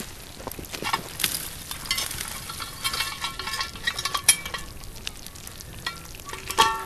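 Barbecue sauce sizzling and bubbling around chicken legs in a cast-iron Dutch oven on campfire coals, with irregular pops and crackles over a steady hiss, busiest in the first half.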